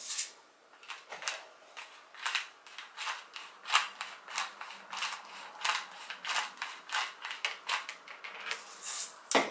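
Disposable plastic pepper grinder being twisted back and forth by hand, grinding black peppercorns: a run of short gritty clicks, about two or three a second, with one sharper click near the end.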